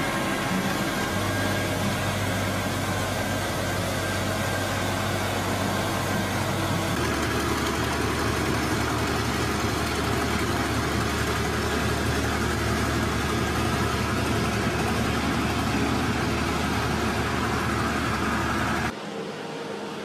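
Engines of road-paving machines, an asphalt paver and then a road roller, running steadily with a low hum. The low drone changes abruptly twice, and the sound drops in level shortly before the end.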